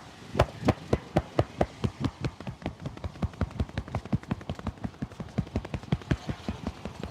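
A barber's hands striking a customer in rapid rhythmic massage slaps, about four a second at first and quickening to about six a second.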